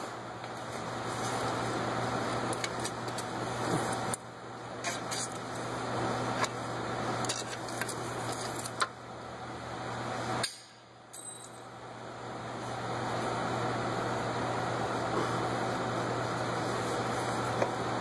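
Scattered sharp metallic clicks and clinks of hand tools working bolts on an engine's throttle body, over a steady low hum and hiss.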